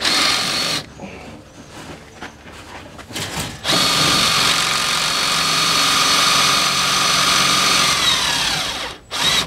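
Cordless drill driving a screw through a board into sheet metal without a pilot hole, with the screw slow to bite. A short burst and a few brief pulls of the trigger, then a long steady whine that winds down in pitch and stops near the end.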